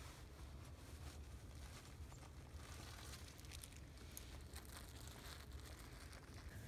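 Near silence: a faint low rumble, with a few light rustles and clicks around the middle.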